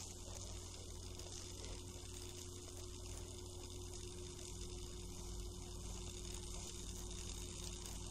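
Faint, steady low hum with a thin steady tone and light hiss behind it, with no distinct knocks or other events.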